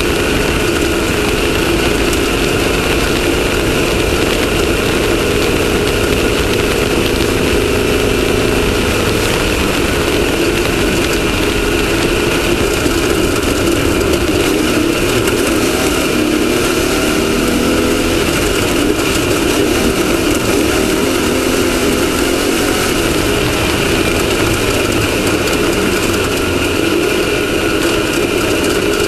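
Class 1600 off-road race car's engine running continuously at speed, its pitch wavering slightly, under a steady rush of wind and road noise.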